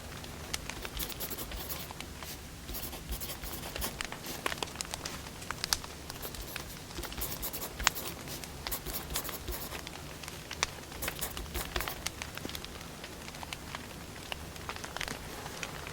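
Burning firewood crackling, with dense irregular snaps and a few louder pops, over a steady low hum.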